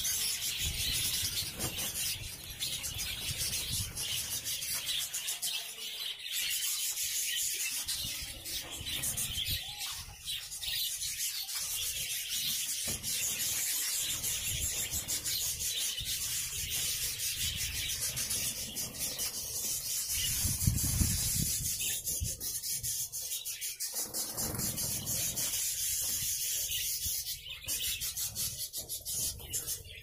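Continuous scratchy rustling and rubbing from a wire carrier crowded with budgerigars as a hand reaches in among them over newspaper.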